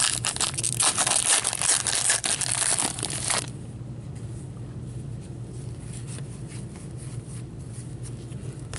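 A hockey card pack's shiny wrapper being torn open and crinkled in the hands, a dense crackling rustle that stops suddenly about three and a half seconds in. After that there are only a few faint ticks of cards being handled over a steady low hum.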